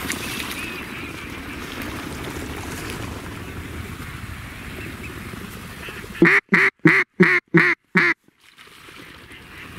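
A steady wash of wind noise, then about six seconds in a run of six loud, evenly spaced mallard-style quacks in about two seconds.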